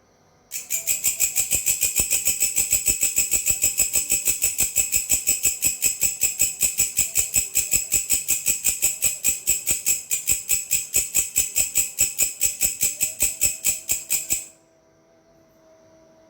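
A singing belalang, a grasshopper-type insect, giving a rapid, even series of sharp high-pitched chirps, about five a second, for about fourteen seconds before stopping abruptly.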